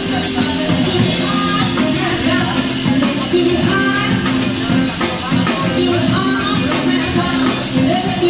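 Rock music with singing, guitar and a steady beat.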